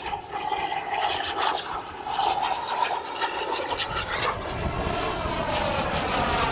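Turbine engines of radio-controlled model jets flying overhead: a high whine over a rushing roar, its pitch sliding a little as the jets pass.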